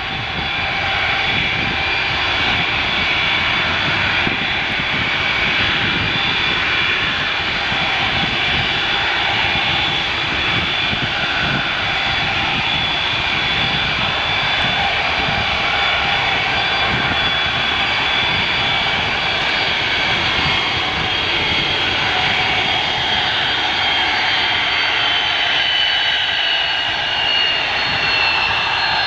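Airbus A330-300's twin turbofan engines running at taxi power as the airliner taxis: a steady rush of engine noise with a high whine on top. Near the end the whine slowly lowers in pitch.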